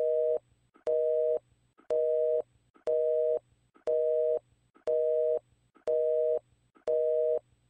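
Telephone busy signal: a steady two-tone beep about half a second long, repeating about once a second, eight times.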